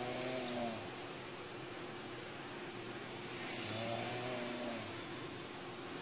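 A sleeping person snoring: two long pitched snores with a breathy hiss, one at the start and another about three and a half seconds in.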